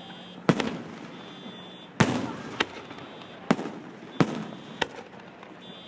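Aerial fireworks bursting: six sharp bangs at uneven intervals, the louder ones trailing off in an echoing rumble.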